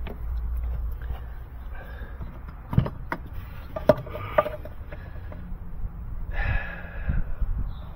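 Hands working around plastic trim behind a car's wheel-well liner: several sharp clicks and knocks about three to four and a half seconds in, over a low rumble, then a short rustling hiss about six seconds in.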